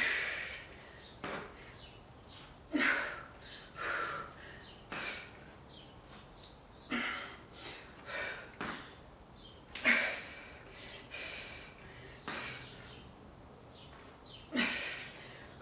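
A woman breathing hard through a dumbbell exercise, with a short, sharp exhale every one to two seconds.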